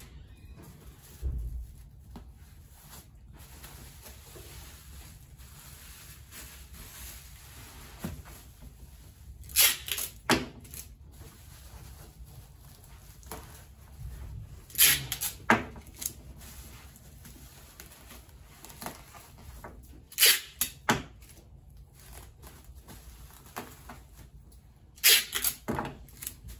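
Packaging being handled while wrapping in bubble wrap: four short bursts of loud rasping, tearing noise about five seconds apart, with quieter rustling between.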